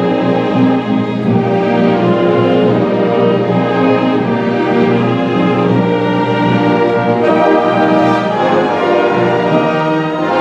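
Symphony orchestra playing, with bowed strings carrying sustained melody lines over a full ensemble.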